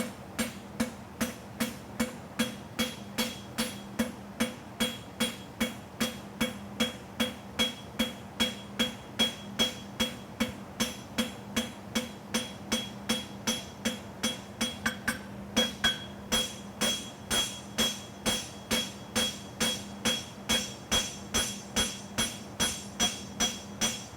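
Farrier's hammer striking a hot steel horseshoe on the anvil in an even rhythm of about three blows a second, each blow with a clear anvil ring, as the toe clip is drawn out by hand.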